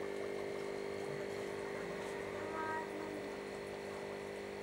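Steady electrical hum of a running aquarium pump or filter.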